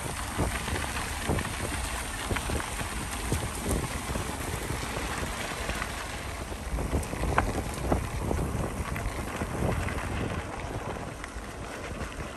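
Bicycle tyres rolling over a loose gravel trail, a steady crackle and patter of small stones, with wind rumbling on the microphone.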